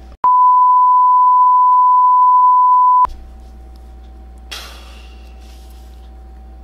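A single steady, high-pitched beep tone, about three seconds long, that starts and stops abruptly and blanks out all other sound while it plays: a censor bleep edited over the sound track. A brief faint rustle follows about four and a half seconds in.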